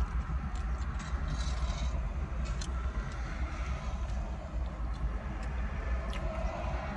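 Steady low rumble of a car idling, heard from inside the cabin, with a few small wet mouth clicks and smacks from eating and licking honey off fingers.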